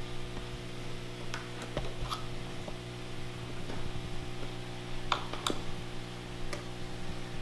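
A few scattered small clicks and ticks from a screwdriver tip prying at the edge of an iMac's LCD panel, over a steady low hum.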